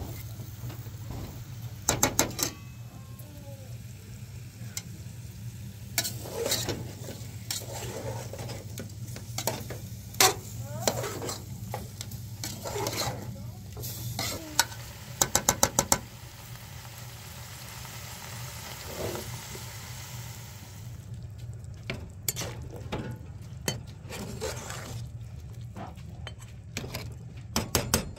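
Meat sizzling as it fries in an aluminium pot on a gas burner, stirred with a metal spoon that scrapes and clanks against the pot, with a quick run of taps about halfway through. The sizzling fades about two-thirds of the way in.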